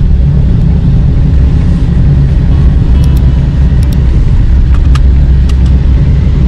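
Steady low rumble of a car on the move, road and engine noise heard inside the cabin, with a few light clicks midway.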